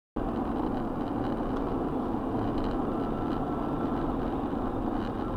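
Steady engine and tyre noise of a car cruising at highway speed, heard from inside the cabin by a dashcam; it comes in abruptly just after the start.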